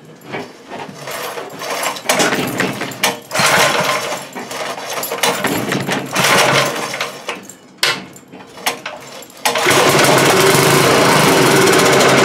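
Montgomery Ward tiller's 5 hp single-cylinder engine being started by hand: a series of uneven bursts as it is cranked over, then about nine and a half seconds in it catches and runs loud and steady.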